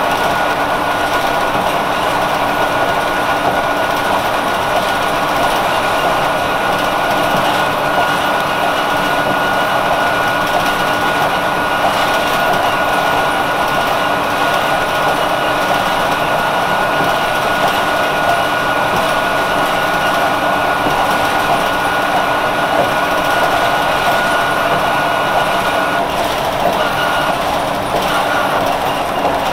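1999 Nova Bus RTS-06 transit bus with its Detroit Diesel Series 50 engine running steadily, a constant high whine sitting over the engine noise. The whine wavers and breaks up briefly near the end.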